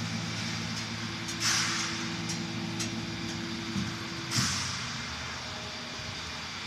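A steady low machine hum made of several held tones, which stops about four seconds in, with two short bursts of hissing, about a second and a half in and again just as the hum stops.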